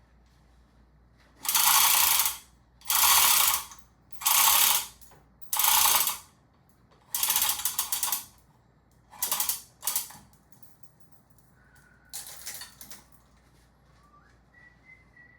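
A ratchet strap being cranked tight in six quick strokes, each a short run of ratchet clicks about a second long, then a shorter stroke near the end: the overhead sky hook holding the motorcycle being tensioned as the lift raises the bike.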